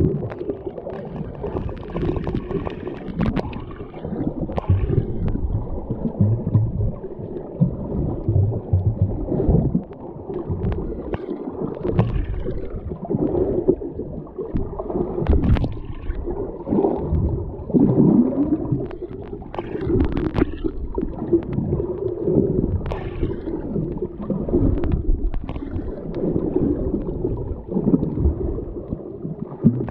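Muffled water sloshing and gurgling close around the microphone, with scattered short knocks, as heard from a camera in or at the water while snorkeling.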